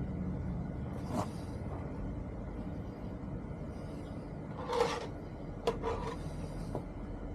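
A steady low rumble, with four brief rubbing sounds of hand work spread through it.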